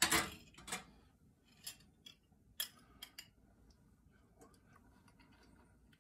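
A metal spoon clinking and scraping against a small bowl. There is a louder scrape at the start, then a few sharp light clicks over the next couple of seconds.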